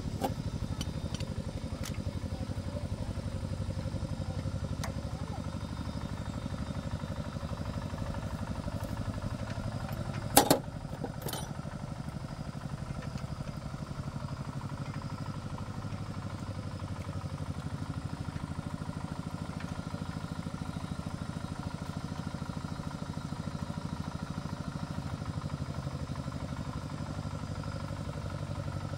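Small engine running steadily, with a sharp metallic clank about ten seconds in and a lighter one just after.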